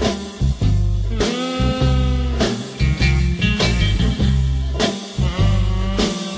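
Background music: a rock track with a heavy bass line and guitar, with sliding notes.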